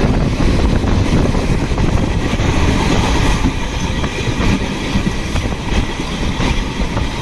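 Electric train running along the track, a steady rumble of wheels on rail with a few faint clicks over the rail joints.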